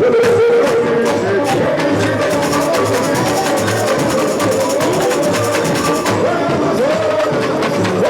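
Samba school bateria playing a samba: low surdo bass-drum strokes about once a second under dense snare and tamborim strokes, with a sung melody over the drums. About six seconds in the sharp high strokes thin out.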